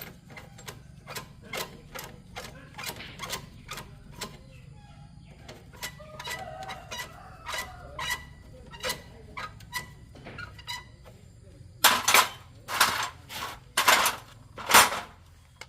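A series of short, sharp knocks, about two a second, followed near the end by four much louder strikes about a second apart.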